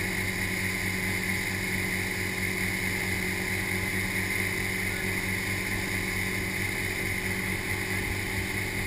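Motorboat engine running steadily at speed, with water from the wake rushing and spraying behind the hull.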